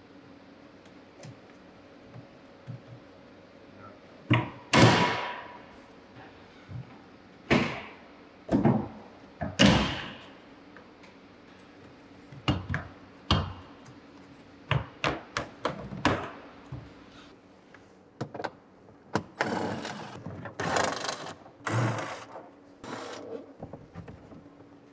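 Hollow knocks and clunks of a Tesla Model S's plastic front-trunk tub being pried and unclipped, a string of sharp separate strikes, several of them loud. Near the end comes a rougher scraping and rubbing as the tub is worked loose.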